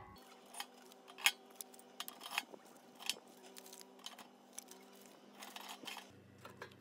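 Split wooden kindling sticks knocking and clattering against each other and the steel firebox of a homemade ammo-can wood stove as they are pushed in one after another: a string of sharp, irregular wooden clicks and knocks.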